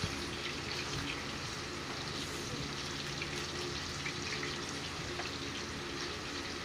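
Longganisa sausages sizzling steadily in oil in a wok, with a light knock of the metal spatula against the pan at the very start.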